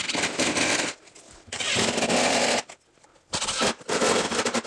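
Cordless driver running drywall screws through a patch into the framing: three runs of about a second each, with short pauses between.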